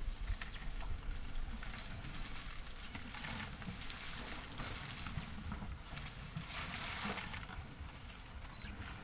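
Leaves and twigs of a broken acacia branch rustling and crackling as a bull elephant pulls at the foliage with its trunk and eats, with a few louder bursts of rustling.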